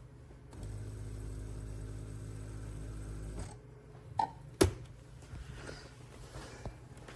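A small electric motor in a coffee maker hums steadily for about three seconds, then stops. A click and a sharper knock follow about a second later.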